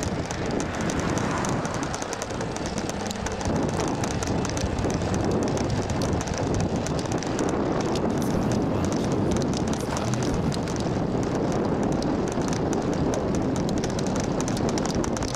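Steady rushing road and wind noise from a vehicle moving along a street.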